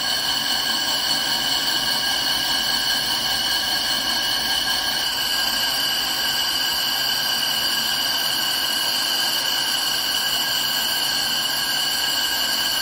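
CNC lathe boring the bore of a spinning ductile iron roll, the insert cutting steadily. A constant machining noise with a high whine of several steady tones, which grows a little stronger about five seconds in.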